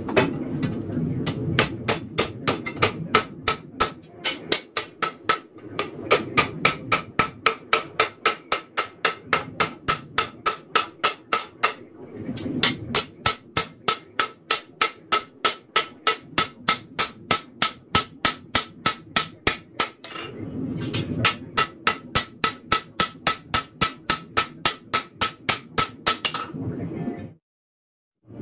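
Hand hammer striking a red-hot steel knife blade on an anvil while forging it: long runs of sharp, evenly paced blows, about four a second, broken by a few short pauses, with the anvil ringing under each blow. It breaks off suddenly near the end.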